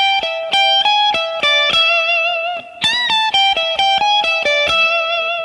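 Electric guitar playing an E minor pentatonic lead lick high on the neck twice: a whole-tone string bend, a quick run of single picked notes with a hammer-on to the major third, ending on a note held with vibrato.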